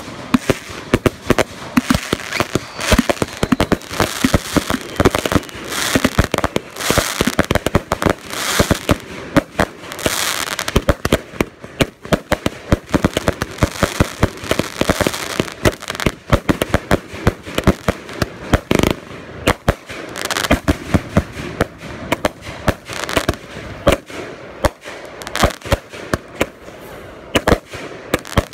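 Multi-shot consumer firework cake firing a rapid barrage: launch thumps and aerial bursts come several a second, overlapping, with crackle between them.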